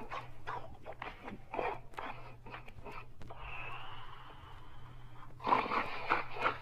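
Snoring in sleep: several short breaths, then a long wheezy breath with a thin whistle running through it, and a louder snore near the end.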